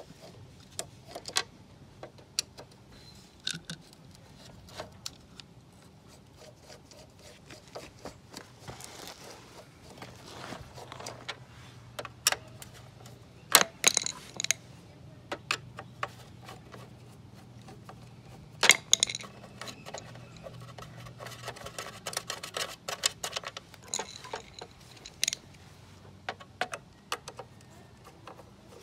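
A hand screwdriver turning out the screws that hold an electric scooter's plastic deck platform: irregular small metallic clicks and ticks, with two louder clacks about halfway through and a few seconds later.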